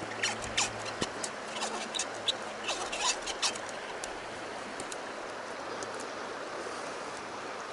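Fishing line being wound by hand onto a 16 oz Nalgene bottle hobo reel, with quick squeaks and clicks for the first three and a half seconds, over the steady rush of a stream that is then all that remains.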